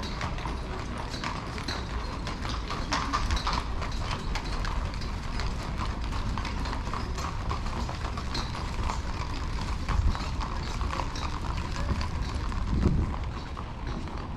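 Horse hooves clip-clopping on pavement over a steady street hum, with a brief low thump near the end.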